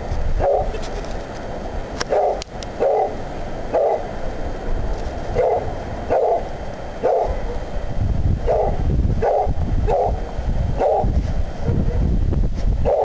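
Hounds (beagles and coonhounds) barking, about a dozen short barks spaced roughly a second apart, stopping about eleven seconds in. A steady low rumble runs underneath.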